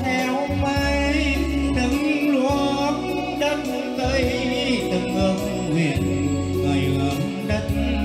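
A man singing a Vietnamese song into a handheld microphone over recorded backing music with a bass line.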